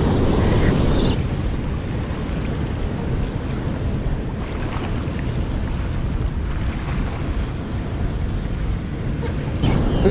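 Surf breaking and washing around rocks, with wind buffeting the microphone. The sound turns slightly quieter and duller about a second in.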